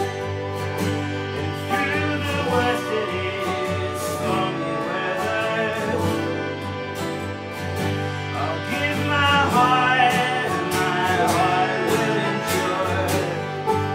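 Live acoustic folk music: a harmonium holds chords under a strummed Gibson J-45 acoustic guitar and a picked banjo, with singing.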